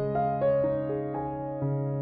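Background music: a gentle keyboard melody of sustained piano-like notes that change every half second or so over held bass notes.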